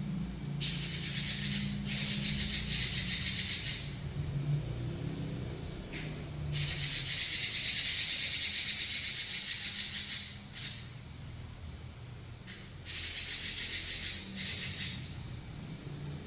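Red-billed leiothrix (Pekin robin) singing long, fast rolling trills in several bouts, the longest about four seconds, with short pauses between them. A low steady hum runs underneath.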